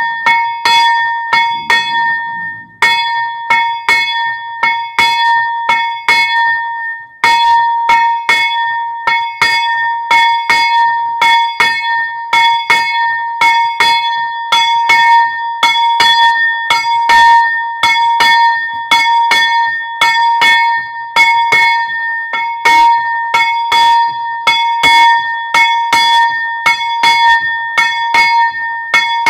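Umieračik, the small 25 kg death-knell bell tuned to about c³, ringing in quick even strokes of about two a second, each stroke a clear high ring over the last one. There is a brief gap about seven seconds in.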